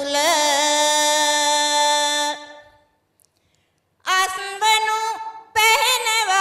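A woman singing Sinhala kavi verse unaccompanied. She holds a long note that fades out about two and a half seconds in, falls silent for over a second, then starts the next line.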